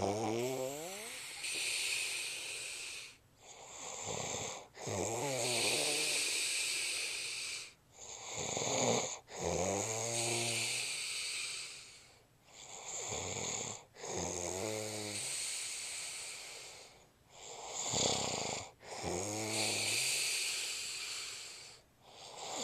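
A man snoring in his sleep, in an even rhythm of about five breaths: each a pitched, rattling snore lasting about a second, followed by a couple of seconds of airy breathing, repeating roughly every four and a half seconds.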